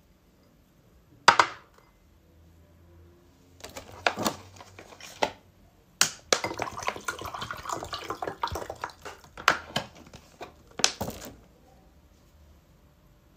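A drinking glass set down on a glass tabletop with a sharp knock, then water poured from a bottle into the glass for about three seconds, with more knocks and clinks as the bottle and glass are handled.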